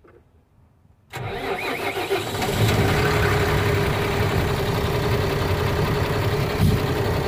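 Tata BS6 truck's diesel engine starting, heard from inside the cab: about a second in the starter cranks briefly, the engine catches, and it settles into a steady idle with a constant hum.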